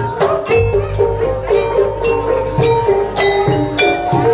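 Live traditional Banyuwangi gandrung ensemble music: a brisk melody of sharply struck, ringing pitched notes over a deep sustained low tone that comes in about half a second in.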